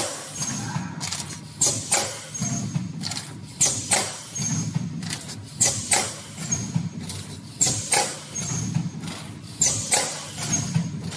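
Spouted pouch filling and capping machine running through its cycle: sharp clacks in pairs, repeating about every two seconds, over a low hum that swells with each cycle.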